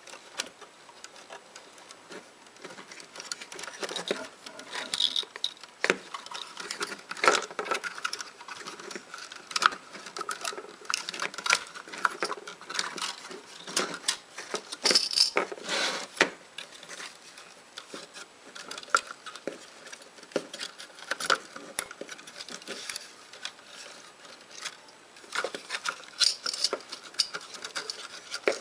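Handling noise as a circuit board and its wiring are worked into an electronics enclosure: irregular clicks, taps and scrapes of the board and panel against the case, with a rustle of wires.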